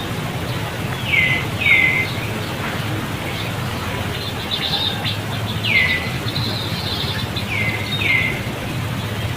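Short, high animal calls that each fall quickly in pitch, heard as a pair, then a single call, then another pair, with some faint higher chatter in between, over a steady outdoor background hiss.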